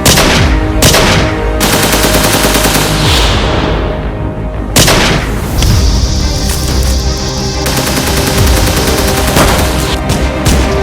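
Gun battle: repeated gunshots, with sharp reports about a second apart near the start and another loud one about five seconds in, over background music.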